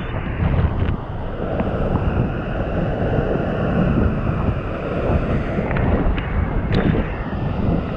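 Waterfall water pouring and splashing: a loud, steady rush, heaviest in the low end, with a few faint clicks.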